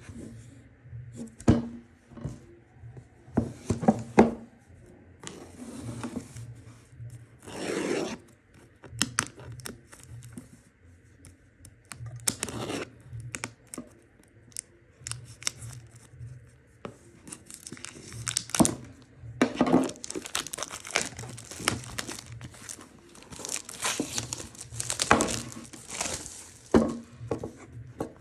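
Plastic wrapping being torn and crinkled off a cardboard box, in irregular bursts of ripping and rustling with small clicks of the box being handled. It is busiest in the last third.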